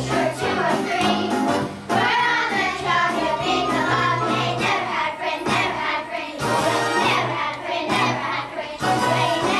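A group of children singing a musical-theatre number together, with instrumental accompaniment.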